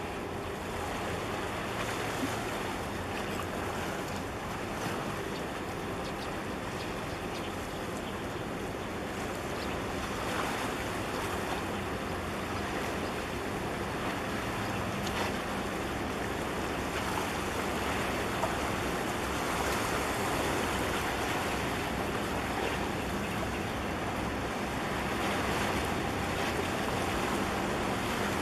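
Harbour water washing against a breakwater of concrete tetrapods, with wind on the microphone, over a low steady hum from a large container ship passing close by.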